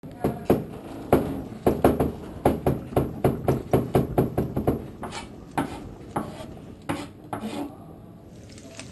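Kitchen knife chopping rapidly on a cutting board, about four strokes a second, slowing to a few scattered cuts after about five seconds and stopping near the end.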